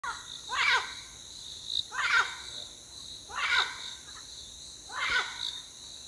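A parrot giving a harsh squawk four times, about once every one and a half seconds, over a steady high buzz of insects.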